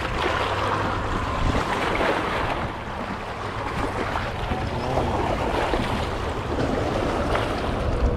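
Wind buffeting the microphone over small waves washing against rocks.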